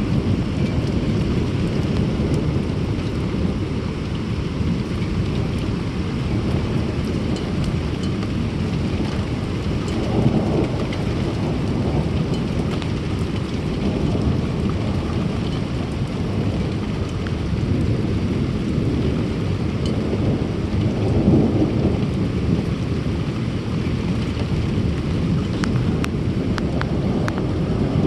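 Thunderstorm: steady rain with a continuous low rumble of thunder. The thunder swells twice, about a third of the way in and again past two-thirds, and a few sharp drop ticks come near the end.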